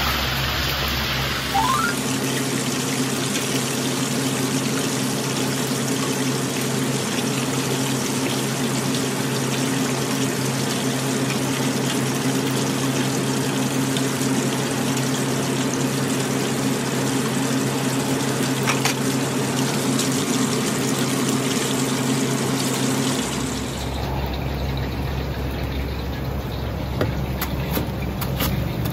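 Battered chicken pieces deep-frying in a wok of hot oil: a steady loud sizzle with a low hum underneath. Near the end the sizzle stops, and a cleaver chops the fried chicken on a round chopping block with a few crisp knocks.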